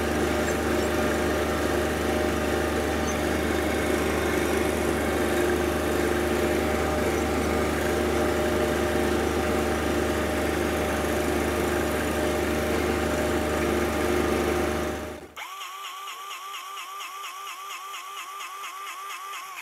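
John Deere compact tractor's diesel engine running steadily under load while pulling a rotary hay rake at low speed. About 15 seconds in the engine sound cuts off abruptly, leaving a quieter rhythmic sound that pulses about four times a second.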